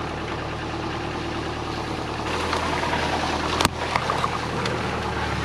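Subaru Forester's flat-four engine running at a low, steady speed, with one sharp click about three and a half seconds in.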